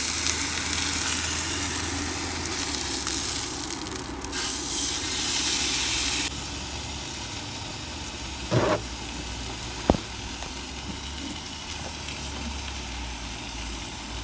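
A stove burner hissing under a pot of water that is heating but not yet at the boil. The hiss drops abruptly about six seconds in, and two brief knocks sound a little later.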